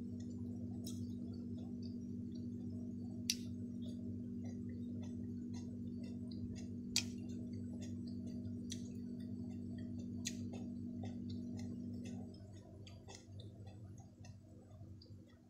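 Eating by hand: scattered sharp clicks and mouth smacks while rice and tuna are picked up with the fingers and chewed, over a steady low hum that cuts off about twelve seconds in.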